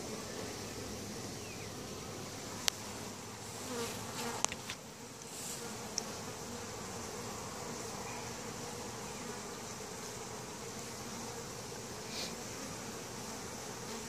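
Steady buzzing of many honey bees from an open, crowded hive, with a few brief sharp clicks about three, four and a half and six seconds in.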